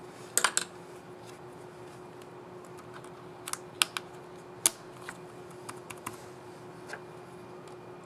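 Dell Vostro 5501 laptop key cap being snapped onto its plastic scissor retainer: sharp plastic clicks, a quick cluster about half a second in and the loudest ones around four to five seconds in as it is pressed home, then a few lighter clicks.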